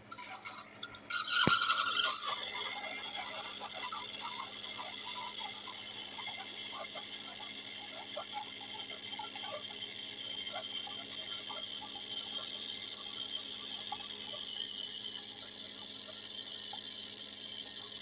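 Keurig single-cup coffee maker brewing: a click about a second in, then steady hissing with trickling and gurgling as the coffee streams into a ceramic mug.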